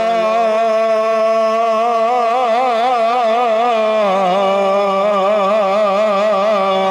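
A man's voice holds one long sung note with a wide vibrato in a marsiya recitation, dropping to a lower note about four seconds in.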